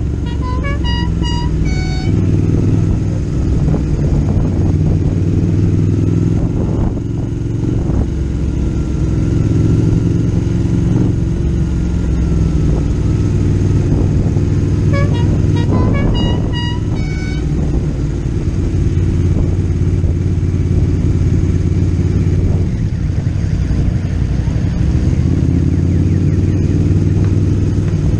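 Motorcycle and trike engines running steadily on a group ride. Twice, in the first two seconds and again about halfway through, comes a quick run of short horn toots at changing pitch.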